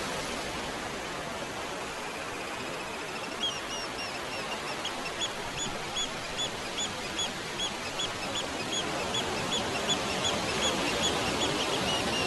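Wind rustling through tree leaves as a steady hiss. From a few seconds in, a bird repeats a short high chirp about twice a second.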